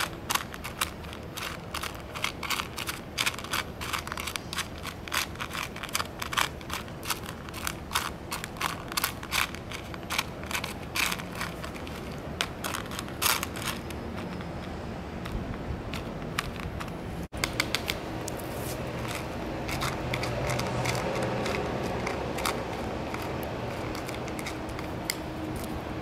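Rapid, irregular sharp clicks and scrapes for the first half, then a steadier rustling noise after a break about two-thirds of the way in.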